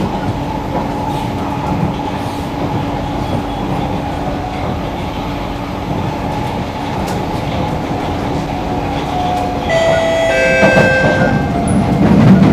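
Interior of a Singapore MRT train running on elevated track: a steady rumble of wheels on rails. About ten seconds in, a brief cluster of high, steady whining tones joins it, and the rumble grows louder near the end.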